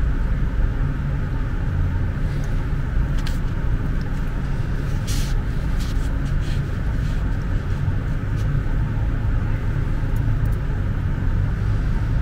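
A steady low background rumble with no clear source, with a few faint short clicks and rustles as fine LED garland wire is handled between the fingers.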